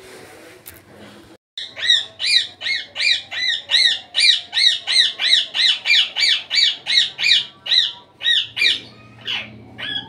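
Indian ringneck parakeet squawking: after about a second and a half of quiet, a fast, even run of loud, harsh, high calls, about three a second, then a few spaced-out calls near the end.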